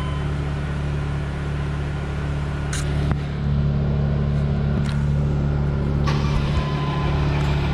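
2008 Mercedes Sprinter diesel engine being cranked on the starter with a steady low drone, not yet catching; it gets louder about three seconds in. The mechanic believes the fuel rail lost pressure after a fuel leak and has to build it back up before the engine will fire.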